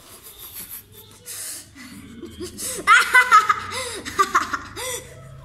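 A child laughing in a run of short pitched bursts. It is loudest about halfway through and tails off near the end.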